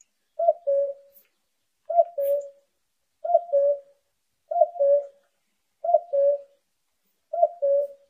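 Common cuckoo calling its two-note "cuck-oo", a higher note dropping to a lower one, repeated six times about one and a half seconds apart.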